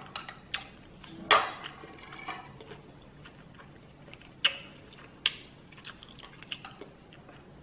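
Chopsticks clicking and tapping against a bowl while noodles are picked up and stirred: about six short, sharp clicks spread out, the loudest about a second and a half in.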